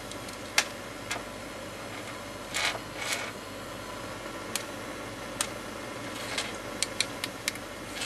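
Scattered light clicks and taps over a steady background hum, the clicks coming closer together near the end.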